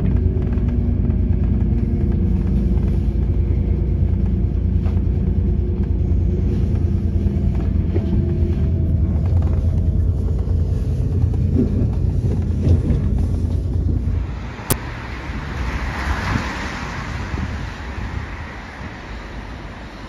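Steady low rumble of a train running at speed, heard from inside the carriage, as it passes alongside a freight train. About fifteen seconds in, a click cuts it off and a quieter, steady hiss follows.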